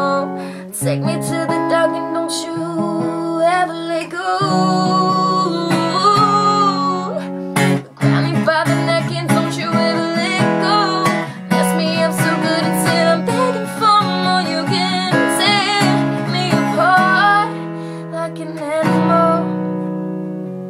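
Acoustic guitar strummed in chords while a woman sings the melody over it, with a brief break in the sound about eight seconds in.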